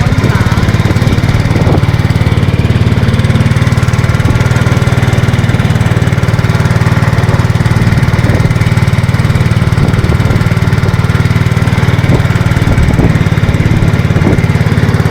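Small engine running steadily at a constant speed, close and loud, with a fast even pulse.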